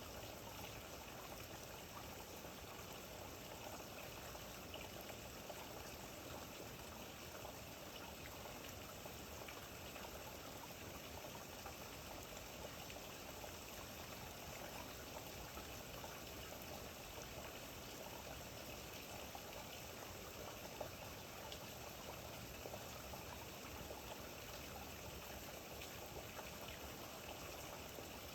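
Steady rain falling, a faint even hiss of many small drops.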